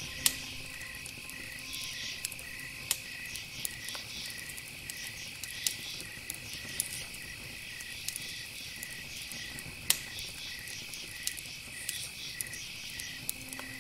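Cricket-like insect chirping in a steady rhythm of about two chirps a second, over a steady high tone and a low hiss, with scattered sharp clicks, the loudest about ten seconds in.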